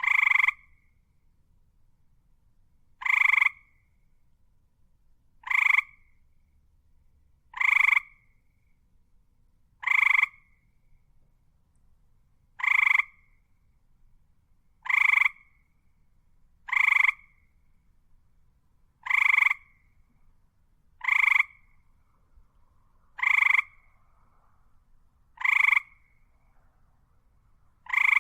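A frog croaking: short single croaks, each with two pitched bands, repeated about every two seconds, about a dozen in all.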